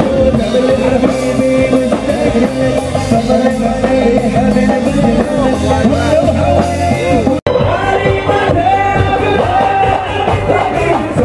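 Live band playing a song with male vocals: drums, bass guitar and keyboard under two men singing. The sound cuts out abruptly for an instant about seven seconds in, then the singing and band pick up again.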